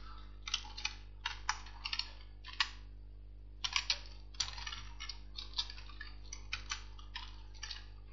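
Computer keyboard being typed on: irregular runs of key clicks with a pause of about a second midway, stopping shortly before the end.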